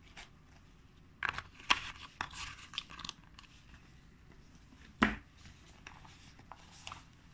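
A Tramp 2-litre thermoplastic polyurethane hydration bladder being handled: crinkling and rustling of the plastic reservoir with small clicks between about one and three seconds in, then a single thump about five seconds in.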